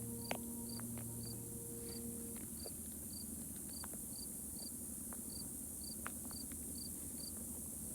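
A cricket chirping steadily at one high pitch, about two chirps a second, with a few faint clicks.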